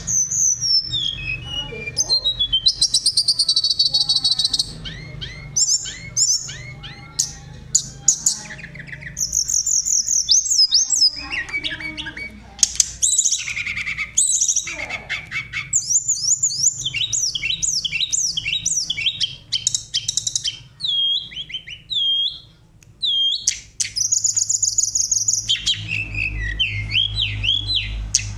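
Songbird singing a long, varied song of high whistles, fast trills and repeated rising notes, a masteran recording for tutoring caged tledekan gunung (hill blue flycatchers). A low steady hum lies underneath and grows stronger near the end.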